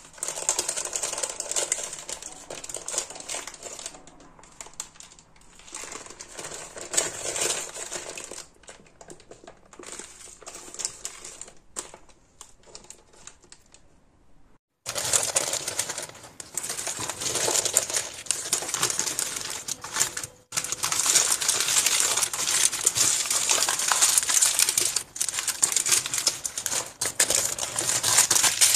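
Parchment paper crinkling and rustling under hands as a sponge cake is rolled up and wrapped in it. Softer in the first half; after a brief break a little past halfway it grows louder and denser.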